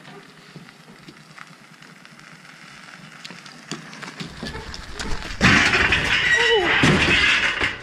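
Chevrolet Camaro being driven up steep ramps onto a car trailer: faint at first, then from about five seconds in a loud, close burst of engine and tyre noise as the car climbs onto the trailer under load, with a falling tone near the end.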